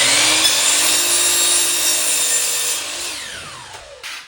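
Power saw cutting through a wooden cabinet part, its motor whine still rising at the start, holding through the cut, then winding down with a falling whine about three seconds in.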